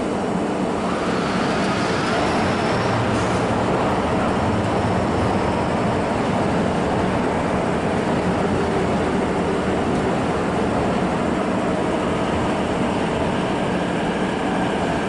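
CNR Changchun-built MTR C-Stock electric multiple-unit train running into an underground station platform: a steady rumble of wheels and motors, with a brief rising whine about a second in.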